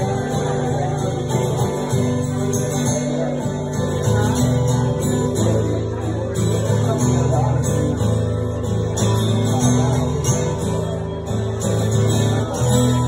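Solo acoustic guitar strummed and picked, an instrumental passage of a song with chord changes and no singing.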